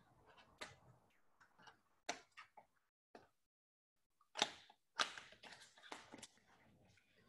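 Faint, scattered clicks and knocks of lab equipment being handled as a laboratory balance is got out, with the loudest knock about four and a half seconds in and a quick run of them just after.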